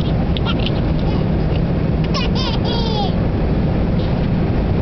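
Steady, loud drone of an airliner cabin in flight, with a baby's squealing giggles about two to three seconds in.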